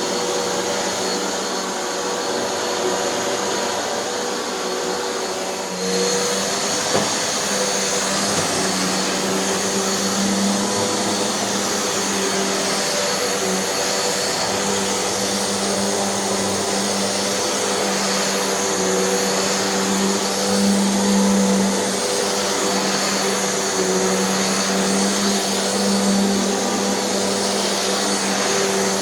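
Hoover NanoLite vacuum cleaner running steadily while vacuuming, its brushroll spinning on an idler pulley glued in place with low-temperature hot glue; a steady motor hum with a high whine. About six seconds in the pitch shifts slightly and it gets a little louder, with a single sharp click a second later.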